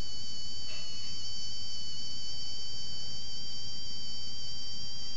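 A steady high-pitched whine of several tones held together at an even pitch, over a faint low hum.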